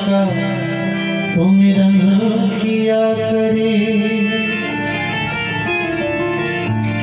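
Live bhajan, a Hindi devotional song: a man singing to harmonium accompaniment, with tabla.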